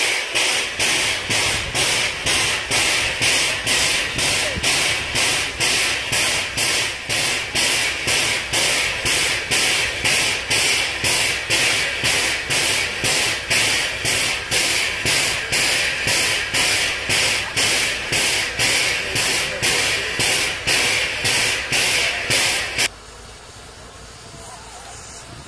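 Narrow-gauge steam locomotive hissing steam in regular puffs, about two a second. The hiss stops suddenly near the end.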